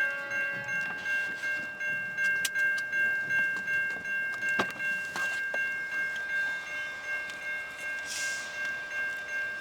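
Railroad grade-crossing bell ringing steadily, about two to three strikes a second. A couple of sharp clicks sound over it.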